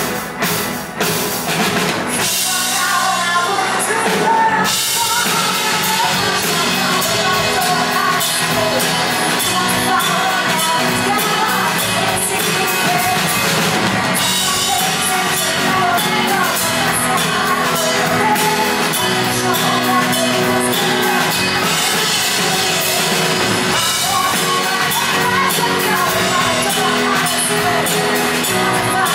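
Live rock band playing loudly, with a woman singing lead over electric guitar and drums; a few sharp drum hits stand out in the first couple of seconds before the full band settles into a steady groove.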